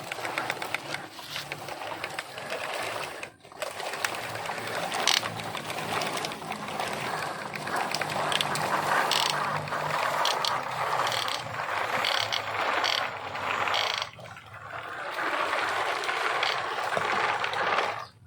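A small mechanism whirring with rapid clicking and rattling, as of a toy's plastic gears, with two brief dips, about three and a half seconds in and again near fourteen and a half seconds.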